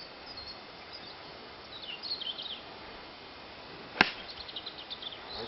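A golf club striking the ball on a tee shot: one sharp crack about four seconds in.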